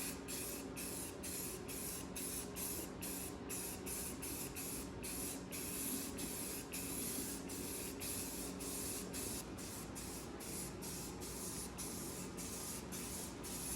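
Aerosol spray can of white primer spraying in a rapid series of short bursts with brief gaps between them, several a second, as a first coat goes on a bare engine bay.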